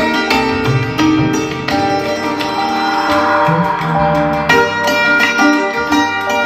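Instrumental background music of plucked string notes over sustained tones, in an Indian classical style.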